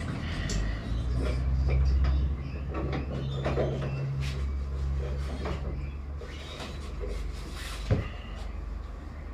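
Scattered clicks, knocks and rubbing from hands working a serpentine belt around the engine's pulleys, over a low rumble. A sharper knock comes near the end.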